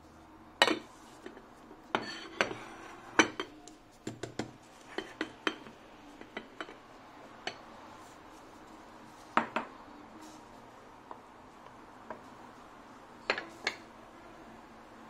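Ceramic bowl and porcelain plate clinking and knocking together in irregular sharp taps, as a bowl of fried rice is upturned onto the plate and lifted off.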